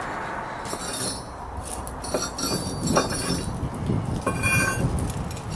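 Light metallic clinking and jingling, with short high ringing tones about 1 s, 2–3 s and 4.5 s in, over a run of dull low knocks from about 2 s on.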